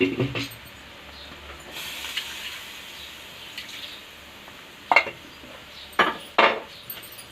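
Water poured into a pan of masala gravy on the stove, with a hiss lasting a couple of seconds, followed by three sharp clanks of utensils against the pan.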